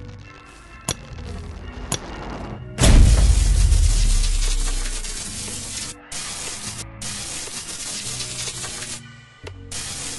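Background music with a loud boom about three seconds in that dies away over about two seconds, preceded by two short sharp clicks; the music drops out briefly a few times later on.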